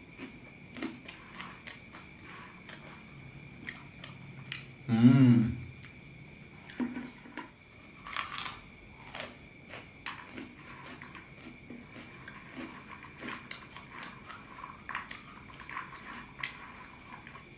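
Close-miked crunching and chewing of small, dry, ring-shaped kerupuk cinta crackers, with many sharp crunches as mouthfuls are bitten and chewed. About five seconds in, a brief hummed voice sound is the loudest moment.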